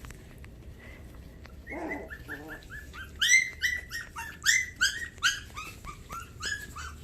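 Havanese puppy whimpering: a run of short, high-pitched cries, several a second, starting about two seconds in.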